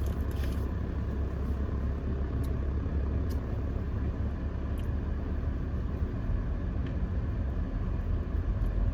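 Steady low rumble of a car driving, heard from inside the cabin, with a few faint ticks.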